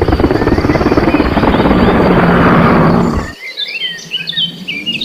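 Helicopter rotor noise, a loud fast chopping that cuts off abruptly about three seconds in, most likely a sound effect for the toy helicopter. Quieter high chirps follow near the end.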